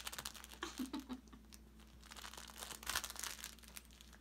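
A flame point Siamese kitten clawing, biting and kicking a fabric catnip kicker toy on carpet: rapid crinkling and scratching, busiest in the first second and again around three seconds in.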